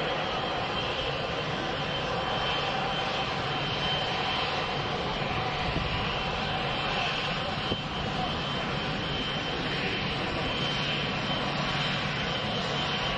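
A Boeing 777's two turbofan engines running at taxi power: a steady jet whine with a high tone over a low rumble.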